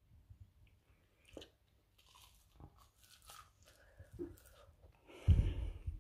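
A person biting and chewing a crispy battered pork sausage: faint, scattered crunches. Near the end comes a louder, muffled low rumble lasting about a second.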